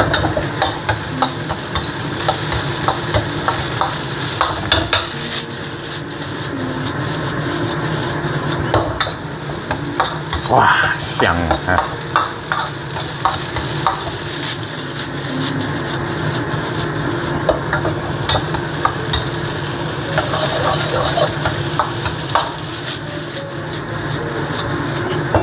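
Fried rice being stir-fried with salted egg in a hot pan. Oil sizzles steadily while a spatula repeatedly scrapes and clicks against the pan as the rice is tossed.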